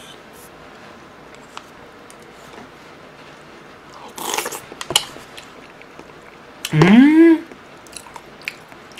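Close-miked eating: a crunchy bite of fried fritter pieces in black-bean sauce about four seconds in, followed by a few wet chewing clicks. Near seven seconds a short hummed 'mmm' rises in pitch and is the loudest sound.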